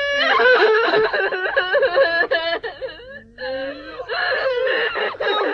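A girl wailing and sobbing in a high, wavering voice, breaking off briefly about three seconds in and then crying on.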